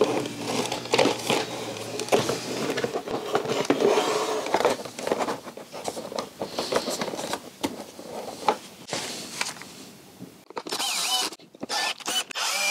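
Plastic body panels of a BMW R1250GS being handled and pressed back into place: irregular knocks, clicks and scrapes of plastic on plastic and frame, thinning out after about ten seconds.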